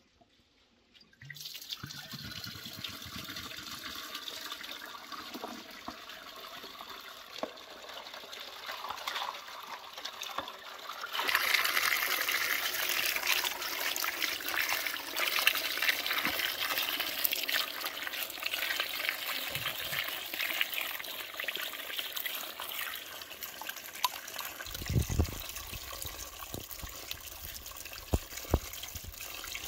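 Tap water pouring from a terracotta jug spout and splashing over eggplants being rinsed by hand in a clay basin. The flow starts about a second in and gets louder near the middle, with a few low knocks near the end.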